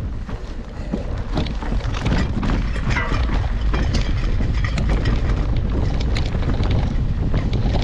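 Mountain bike riding over rough ground, heard from a camera on the bike or rider: heavy wind rumble on the microphone with frequent rattling clicks and knocks.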